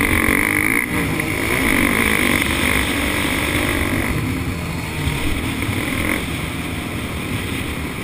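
Kawasaki KX125 125cc two-stroke single-cylinder dirt bike engine being ridden hard, its revs rising and falling, heard from the bike itself over heavy wind buffeting on the microphone.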